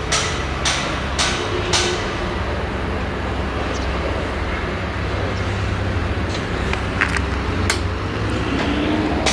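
New Holland CX combine harvester with an 8-row Geringhoff corn header harvesting dry maize, the engine and threshing drone steady under load. Over it come sharp cracks, about two a second at first and then scattered. Near the end a rising whine comes in.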